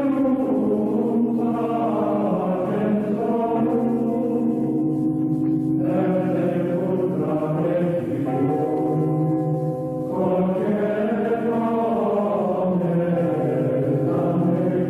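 A choir of monks chants slow plainchant in long held notes, with new phrases entering about six and ten seconds in.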